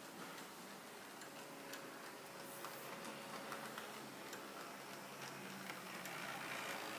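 H0-scale model Peter Witt trams running on their layout track, with faint irregular clicking from the wheels over rail joints and turnouts. A faint steady whine runs underneath.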